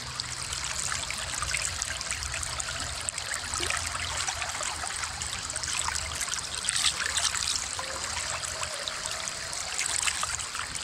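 Creek water trickling and running steadily around the wader, with a few small splashes and ticks at the surface.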